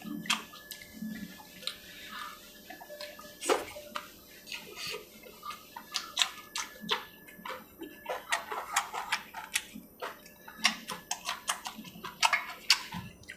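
Close-miked eating: wet chewing and lip smacks, a long string of short sharp clicks, as a man eats chicken curry and bites into a cucumber slice.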